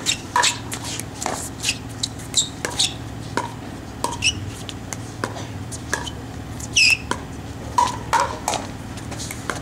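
Pickleball rally at the net: paddles hitting a plastic pickleball back and forth in short sharp pops, roughly one to two a second. Sneakers squeak on the hard court, the loudest squeak a little before the end.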